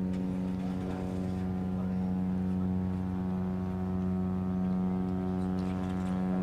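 Ferry giving off a steady, low, pitched drone with many overtones, holding constant without any change in pitch or level.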